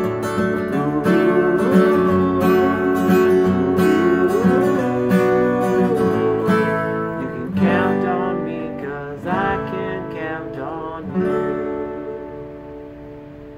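Steel-string acoustic guitar strummed in a steady rhythm. The strumming thins to a few single strokes after about seven seconds, and a last chord rings out and fades.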